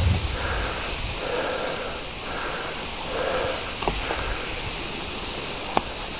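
Dog sled running over snow: a steady hiss of the runners and wind, with soft rhythmic breaths about once a second and a couple of small clicks.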